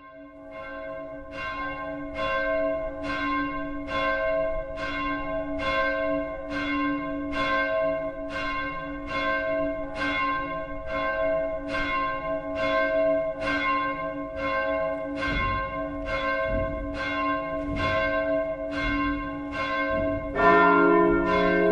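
Church bell tolling, about one and a half strikes a second, fading in over the first couple of seconds; a deeper second bell joins and the ringing grows louder about twenty seconds in.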